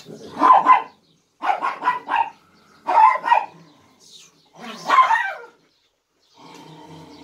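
Dog barking in four short bursts of quick barks, about a second apart.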